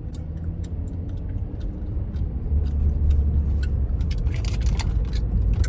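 Car driving, heard from inside the cabin: a steady low rumble of engine and road noise that grows slightly louder about halfway through, with faint scattered clicks.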